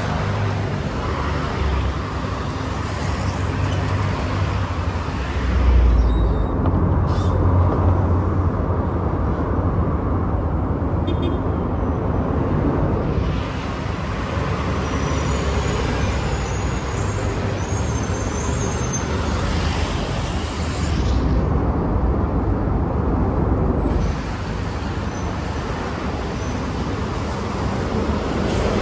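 Diesel city buses passing and pulling away along a busy road, with a steady low engine rumble over traffic noise. The sound changes abruptly several times.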